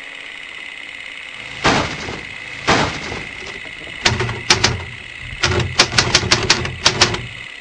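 Sound effects for an animated logo intro: over a steady hiss with a thin high tone, two quick whooshes, then from about four seconds in a rapid run of sharp clicks and hits over a low rumble.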